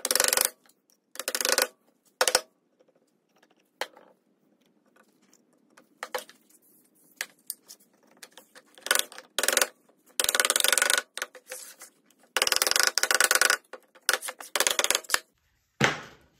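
A rubber mallet knocking the joints of a wooden drawer box together: repeated bursts of rapid, sharp tapping with short quiet gaps between them.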